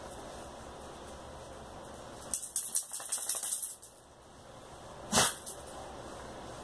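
A rapid run of rattling clicks for about a second and a half, then a single short cough about five seconds in, the loudest sound.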